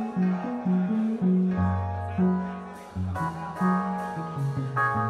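Live jazz-funk band playing: a bass guitar line with long held low notes under keyboard and guitar chords, and the drum kit coming in about three seconds in with a steady cymbal beat.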